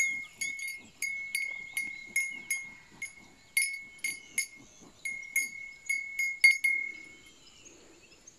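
A bell hung on a cow clanking irregularly as the animal moves, two or three strikes a second, each leaving a short ring, falling silent about seven seconds in.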